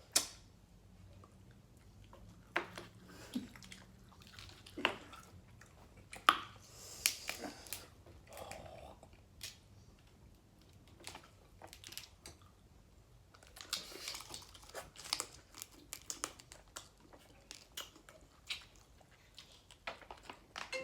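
Eating sounds from a seafood boil: chewing and biting, with scattered sharp cracks and crinkles of shells and wrappers.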